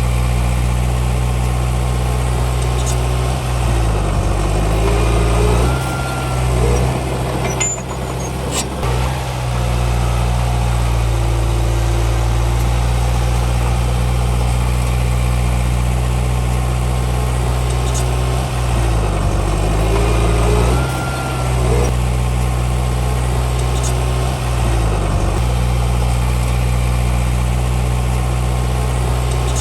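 Komatsu D31P bulldozer's diesel engine running steadily, its pitch dipping and recovering twice as it takes load while pushing soil. A few sharp metallic clanks come near the first dip.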